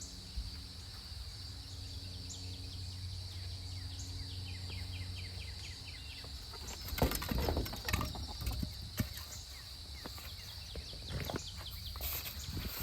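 Outdoor ambience: a steady high-pitched drone and a low hum, with short bird chirps, then scattered knocks and clatter in the second half.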